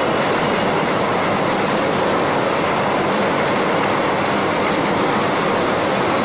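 Bottle unscrambler running, with a steady dense rattle and whir of machinery and bottles clattering as they are sorted upright and fed out along the conveyor.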